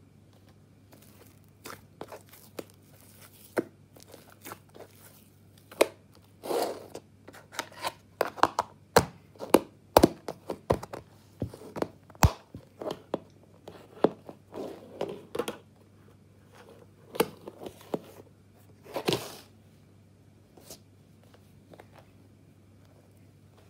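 Slime being squeezed, pressed and pulled apart by hand: irregular sticky pops, clicks and short tearing sounds, some louder snaps among them, with a faint low hum underneath.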